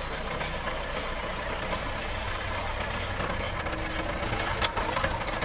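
Hoa Mai dump truck's engine running steadily close by, with one sharp clack about four and a half seconds in.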